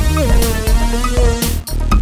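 Electronic music with a heavy bass line, drum hits and a synth melody.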